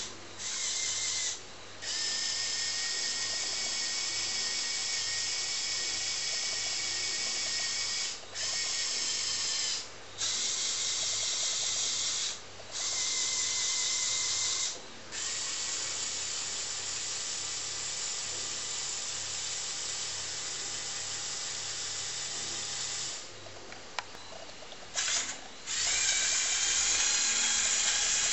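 Small electric motors of a Lego Technic model whirring through their plastic gear trains, high-pitched like a small drill, in about eight separate runs that start and stop with short pauses as the model drives and works its lift arm and bucket.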